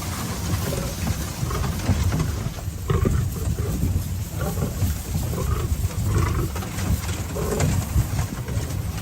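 Several lions giving short, rough growls around a vehicle, over a steady low rumble.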